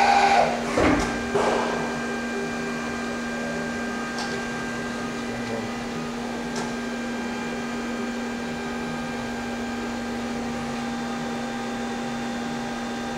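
Brother TC-S2DN-0 CNC drill-tap center finishing a tool change: the tool magazine spins with a short whir and a few clunks in the first second and a half. Then the machine settles into a steady humming whine, with a couple of faint clicks.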